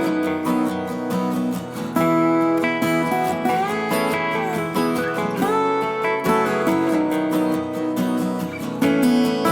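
Acoustic guitar music, plucked and strummed, with some notes sliding in pitch.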